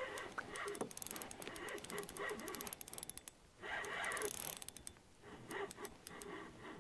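Fishing reel clicking in quick runs as a hooked fish is fought and reeled in. The clicking breaks off briefly past the middle, then resumes more sparsely.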